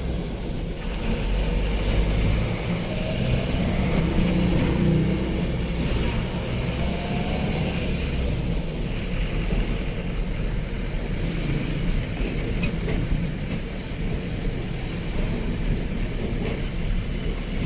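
A moving road vehicle's engine and road noise: a steady low rumble.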